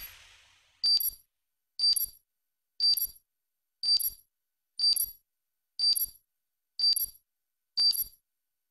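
Countdown clock sound effect: a short, bright electronic beep once a second, eight times, one for each second counted down. The tail of a whoosh fades out in the first half second.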